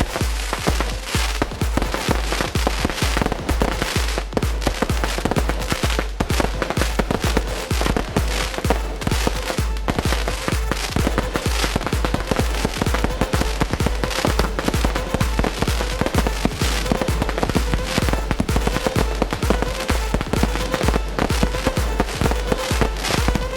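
Fireworks popping and crackling in rapid succession, mixed with background music that has a steady beat.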